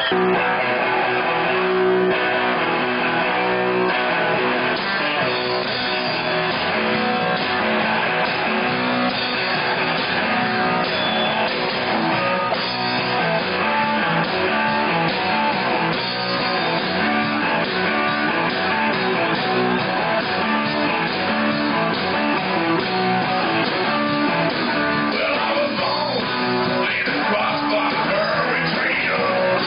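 Live rock and roll band playing, with electric guitars and drums.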